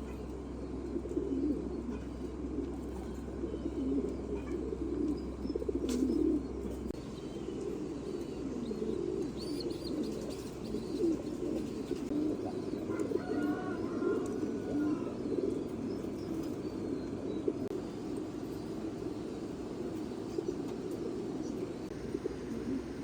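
Many domestic pigeons cooing at once, a continuous overlapping low cooing, with a few higher chirps around the middle and a single sharp click early on.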